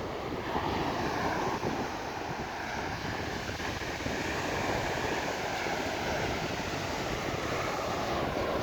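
Sea surf and wind on a phone microphone, steady throughout, with a faint drone underneath that drifts slowly in pitch.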